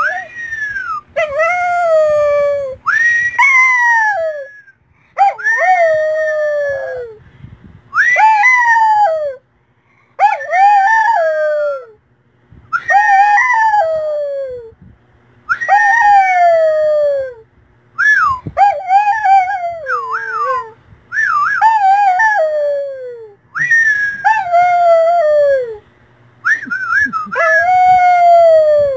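Small white shaggy dog howling: about a dozen long, drawn-out howls in a row, one every two seconds or so. Each howl swells and then slides down in pitch.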